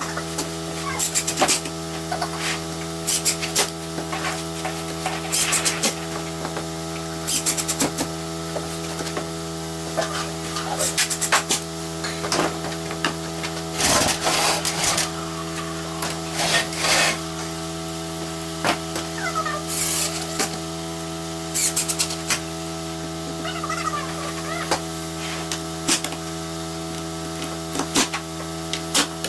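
Hands-on building work: irregular knocks, scrapes and clatters of materials and tools, about one every second or two, over a steady hum.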